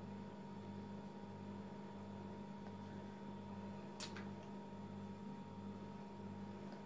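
Quiet room tone with a steady low electrical hum and a faint hiss, and one light click about four seconds in.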